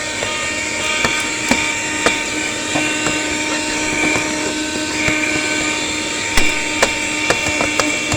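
Cheap portable vacuum cleaner running steadily with a whining motor, with scattered small clicks as crumbs and debris are sucked up off car carpet. Its suction is not very powerful.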